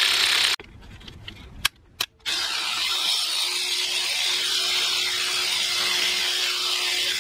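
Ratchet wrench working on intake manifold bolts: a dense rasping rattle that stops about half a second in, a few sharp clicks near two seconds, then a steady rattle again.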